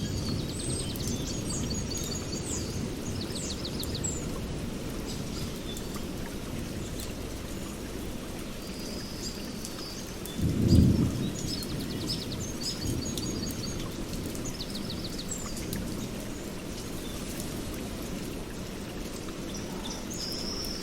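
Small songbirds calling and trilling in short repeated phrases over a steady low rushing noise. A single short, loud low thump comes a little past halfway.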